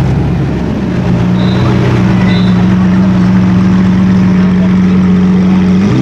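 Supercar engine running at a steady pitch for several seconds, the note holding level after a less settled first second.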